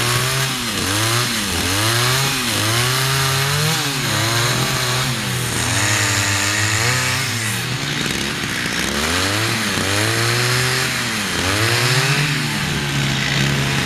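Chainsaw carving a wooden sculpture, its engine revving up and dropping back again and again, about once a second, as the chain cuts into the wood.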